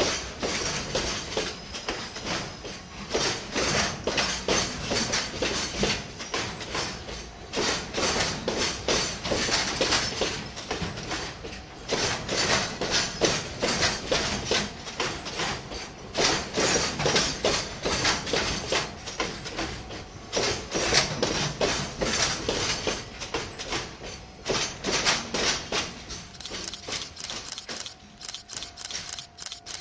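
Freight wagons rolling past at low speed, their wheels clattering over rail joints in groups of clicks about every four seconds as each wagon's bogies cross. The clatter weakens over the last few seconds.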